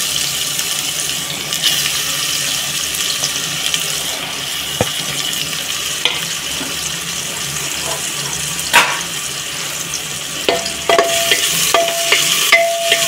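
Sliced onions sizzling steadily in hot oil in an aluminium pressure cooker. Near the end a spatula starts stirring, clicking and scraping against the metal pot.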